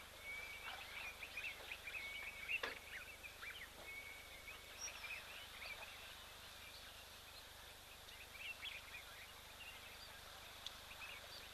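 Small birds chirping and twittering together, with short whistled notes, busiest in the first half and thinning out after. A single sharp tick about two and a half seconds in.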